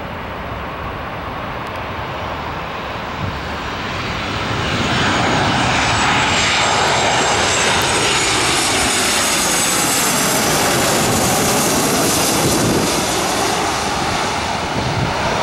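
Boeing 737-700's twin CFM56-7B jet engines on landing approach, growing louder as the airliner closes in and staying loud from about five seconds in as it passes overhead. A high engine whine shifts in pitch over a steady rumble, and the sound eases slightly near the end as the plane moves away.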